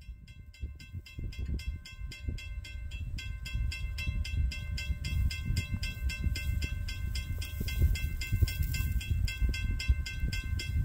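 Railroad grade-crossing warning bell ringing rapidly, about five strikes a second, over a low train rumble that grows louder as the train approaches.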